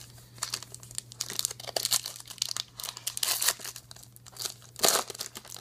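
Plastic-foil Topps trading-card pack wrapper crinkling in the hands as it is torn open, in irregular crackles, the loudest near the end.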